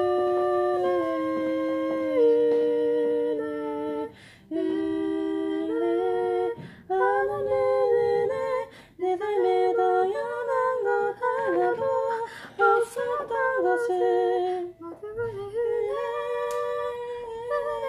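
Two women singing a Korean hymn together in harmony without accompaniment: a slow phrase of long held notes that step from pitch to pitch, broken by short breaths between lines.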